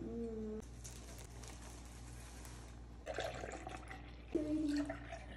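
Milk poured from a carton into a drinking glass, splashing as the glass fills, starting about three seconds in. Before it, a faint scraping of a knife spreading chocolate spread on bread.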